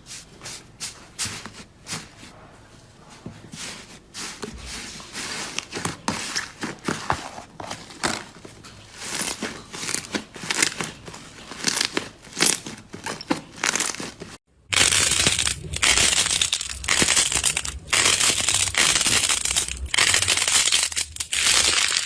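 Slime being squeezed and pressed by hand, making irregular crackling and crinkling pops. After a short break about two-thirds of the way in, a louder, denser crackling follows.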